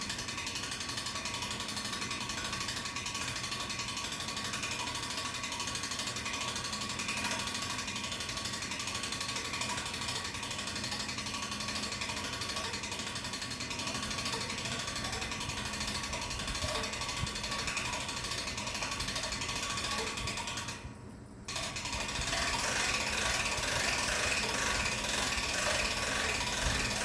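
Hand-crank cable winch ratcheting steadily, its pawl clicking rapidly as the cable hauls the antenna tower up. The cranking stops for a moment about three-quarters of the way through, then resumes a little louder.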